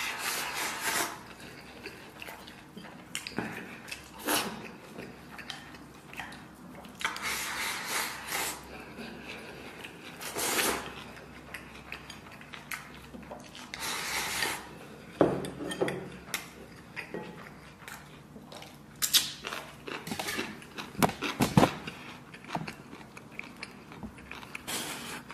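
A person eating at a table: utensils knocking and scraping against bowls and dishes at irregular intervals, with biting and chewing between them.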